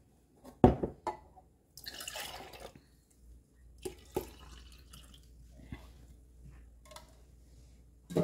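Carrot juice pouring and dripping for about a second, with a sharp knock just before it, a few light clicks, and another knock at the very end.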